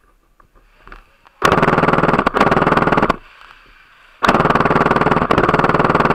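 Gel ball blaster firing on full auto: two long bursts of rapid shots, each under two seconds, the first about a second and a half in and the second about four seconds in.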